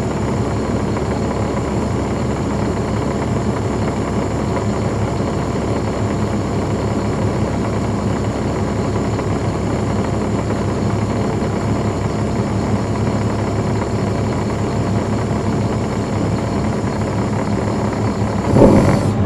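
Caterpillar C13 ACERT diesel engine of a 2009 NABI 40-foot transit bus, heard from on board, running steadily at an unchanging pitch with its engine fans off. A sudden louder burst of noise comes near the end.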